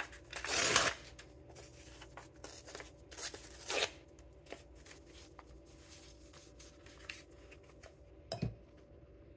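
Paper ephemera being handled and shuffled: rustling and light taps, with louder rustles just under a second in and again around three seconds in, and a brief knock near the end.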